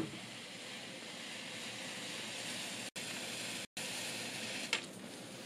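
Paper painted with potassium nitrate solution smouldering along the painted line: a steady hiss with one sharp crackle near the end. The heat decomposes the nitrate, and the oxygen it gives off drives the burning along the treated line. The sound drops out twice, briefly, about three seconds in.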